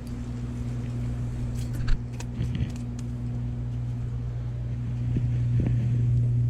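A steady low mechanical hum that grows louder about five seconds in, with a few light clicks and knocks in the first half.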